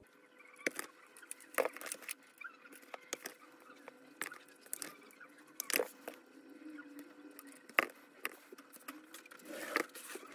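Hands working a rubber-sheathed power cord with a wire stripper: scattered sharp clicks and rustling as the cable is cut and its insulation stripped, with a few louder snaps.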